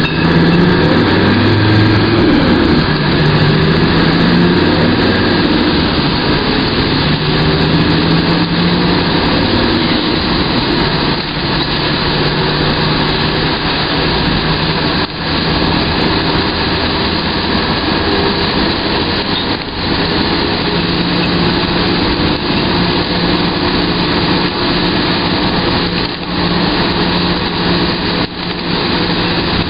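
Vehicle engine running steadily under way, its pitch shifting a little now and then, over a constant rushing hiss of wet-road and wind noise. The sound dips briefly a few times.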